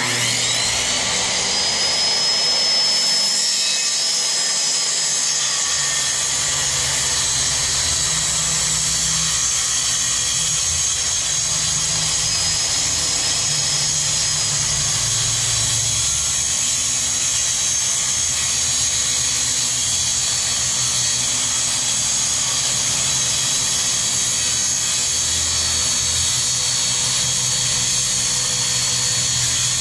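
Corded circular saw starting with a rising whine and then running steadily through a long cut in a plywood sheet.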